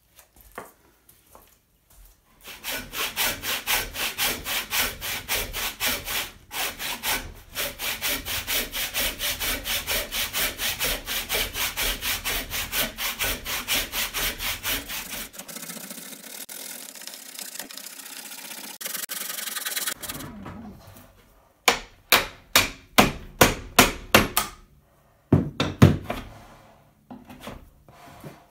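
Handsaw cutting through a thick cherry wood slab with quick, even back-and-forth strokes, about three a second. Around 20 s in the sawing gives way to slower, sharper separate strokes, about two a second.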